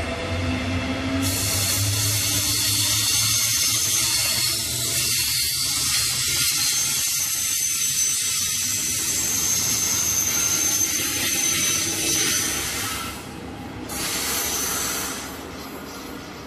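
Red DB class 146 electric locomotive and its double-deck regional-express coaches passing close: a steady rush of wheels on rail with a thin high whine, dropping away in the last few seconds as the train runs off into the curve.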